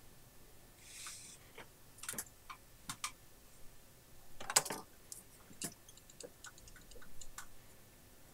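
Faint, scattered clicks and taps of small parts and tools being handled on a workbench, with a short soft hiss about a second in; the loudest click comes about halfway through.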